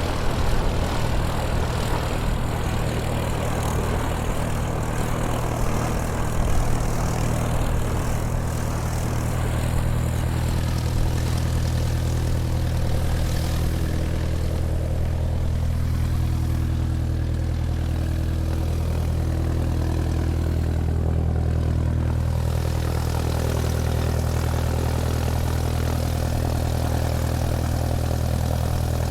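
Airplane taxiing: its engine runs steadily with a deep, even hum. A faint high whine sits over it for about the first third, dipping slightly in pitch and rising again before it fades out.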